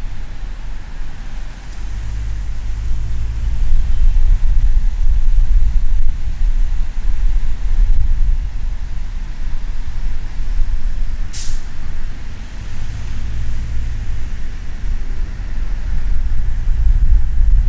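Car driving on a city expressway: a steady low road-and-wind rumble that grows louder a couple of seconds in. About eleven seconds in comes one short, sharp hiss.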